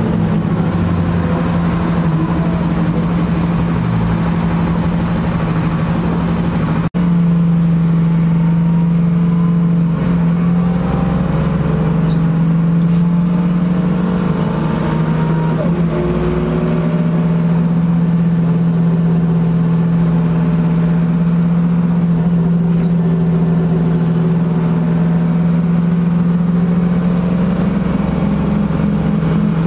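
Ride inside a 2000 NovaBus LFS city bus: its engine drones steadily, with road and cabin noise and a few faint rising whines as it pulls away and speeds up. The sound cuts out for an instant about seven seconds in.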